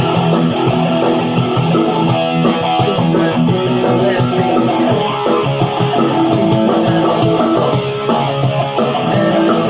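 Electric guitar played through a Line 6 Spider V30 amp on a rock tone, with held chords and notes at a steady, loud level.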